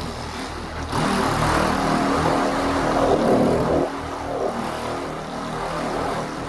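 Electric paint polisher running while buffing orange peel out of car paint. It grows louder and rougher about a second in as the pad works the panel, then eases back just before the four-second mark.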